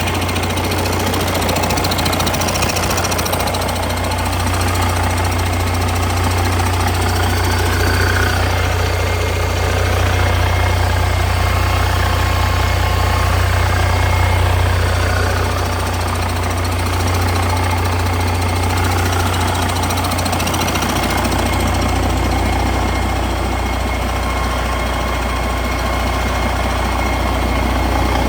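Detroit DD15 14.8-litre diesel engine running steadily on a run test, a continuous low even rumble with a slight drop in level about halfway through.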